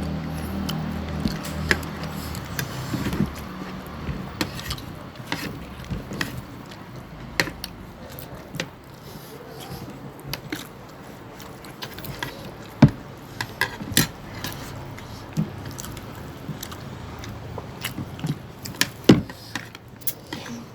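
People chewing and eating biryani close to the microphone, with scattered sharp clicks and taps throughout and a few louder ones in the second half.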